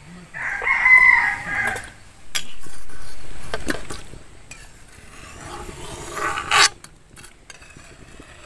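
A rooster crowing a few times, with a couple of sharp clinks of a metal ladle against the pan as boiled flat beans are scooped out.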